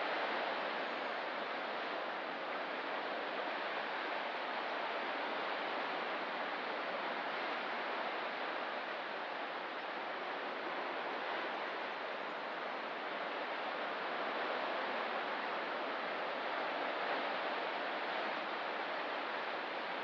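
Distant ocean surf along a rocky coast, a steady, even rushing wash with no single wave break standing out.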